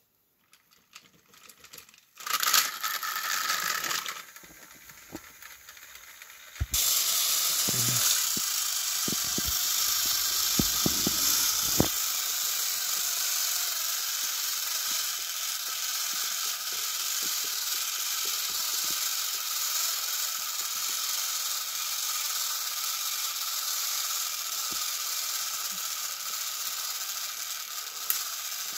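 Battery-powered Thomas & Friends toy engines straining against each other on plastic track: a steady whirr of small motors and gears that starts about a third of the way in, with a few clicks in its first seconds. A shorter burst of the same kind of motor noise comes about two seconds in.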